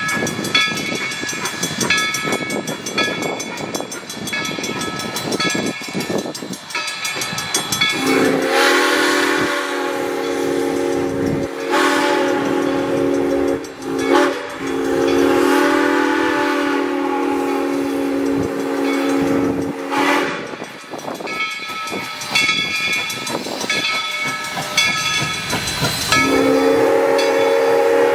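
Steam locomotive No. 97 departing. A bell clangs in a steady rhythm over the engine's noise. About eight seconds in, the locomotive's multi-note steam whistle blows one long blast of about twelve seconds, dipping briefly twice, and a second blast starts near the end.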